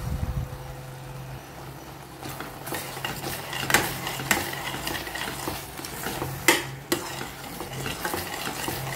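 Metal slotted spatula stirring and scraping thick banana halwa around a stainless steel pot, with a few sharp clinks of the spatula against the pot, about four seconds in and again near six and a half seconds. The halwa is thickening and coming together, no longer sticking to the pot.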